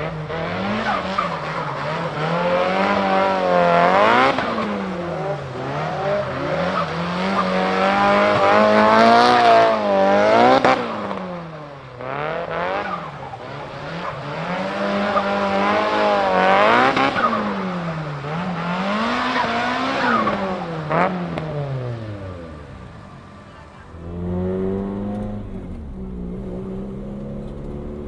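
Nissan Silvia S15's turbocharged four-cylinder engine with an HKS GTIII-RS turbo kit, heard from inside the car while drifting: the revs climb and drop again and again, with tyre squeal. Near the end the engine settles into a steadier, lower note.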